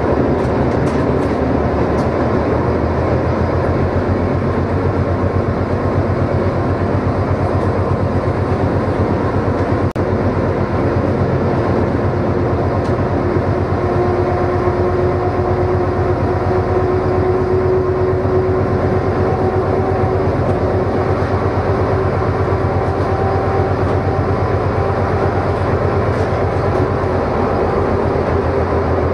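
Class 742 diesel-electric locomotive running steadily under load while hauling a freight train, heard from the driver's cab. The engine's low drone and rumble hold a constant level, and a steady higher hum joins it about halfway through.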